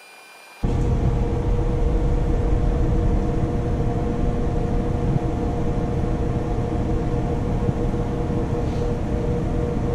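Minneapolis Blower Door fan running steadily with its B flow ring fitted: a loud rush of air over a steady hum, depressurizing the house toward a 10 pascal test point. It starts suddenly about half a second in.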